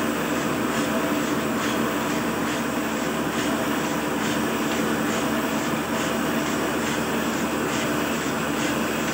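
Oliver 58 sheet-fed offset printing press running steadily, with a regular clatter of about two beats a second from its working cycle.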